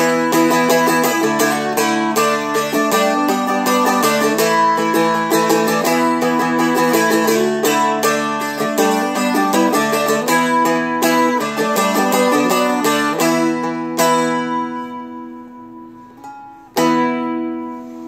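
A Seagull Merlin strummed with a quick, busy rhythm through a run of chords. Near the end a chord is left ringing to fade, and then one more chord is struck and rings.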